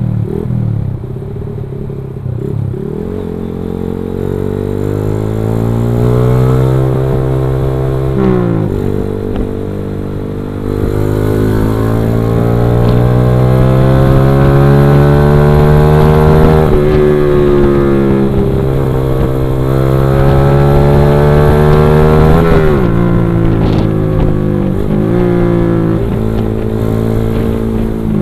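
Motorcycle engine under way, speeding up and easing off: its note climbs, drops sharply about 8 seconds in, climbs again to its loudest in the middle, then falls away to a lower note near the end.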